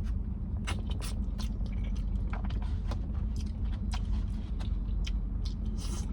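Close-up chewing and eating sounds: wet mouth clicks and lip smacks at an irregular pace, over a steady low hum.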